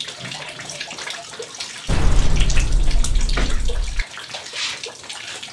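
Water from a leaking roof dripping and splashing into plastic buckets and basins, with many small irregular drips. A louder low rumble runs for about two seconds in the middle.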